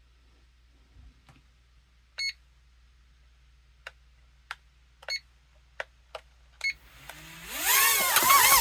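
Short electronic beeps, three of them, and light clicks while the SYMA TF1000 quad-rotor helicopter is synced to its remote. About seven seconds in, the helicopter's motors and rotors spin up to take off, with a rising whine.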